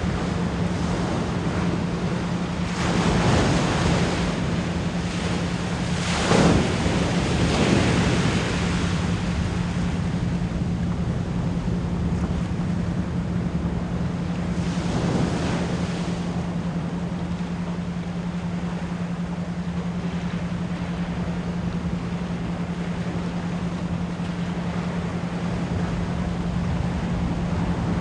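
Ocean waves washing in as a steady surf, with louder waves breaking about three seconds in, around six to eight seconds, and at about fifteen seconds, over a steady low 174 Hz pure tone.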